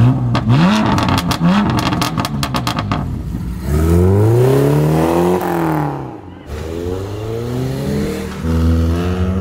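Car engines revving and accelerating hard, with a rapid crackle in the first few seconds. One engine climbs in pitch and drops away as it passes near the middle, and another pulls up through the gears near the end.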